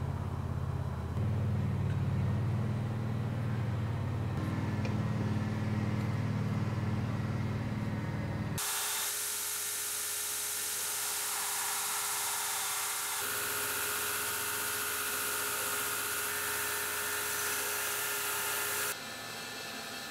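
Belt grinder running, its sanding belt grinding an ironwood handle block and then a steel sword fitting, a steady whine with a hiss. Before it, for the first eight seconds or so, there is a loud steady low hum.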